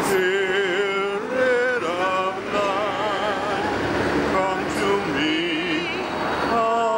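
Voices singing a slow hymn in long held notes that waver and step between pitches, over a low steady rumble.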